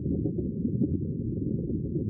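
Sea water making a steady, muffled low rumble, with a few faint clicks.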